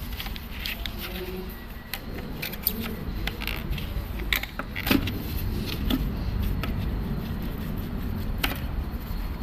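Scattered sharp metallic clicks and clinks, as of tools and small metal parts handled on a pipe threading machine, over a steady low rumble.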